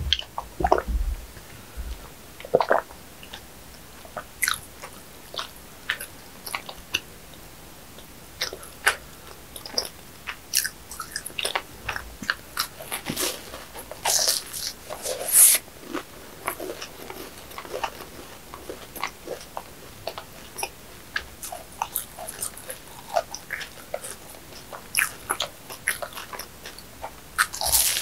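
Close-miked eating of a flaky, cream-filled pastry horn: repeated crisp, crackly bites and crunches with chewing in between.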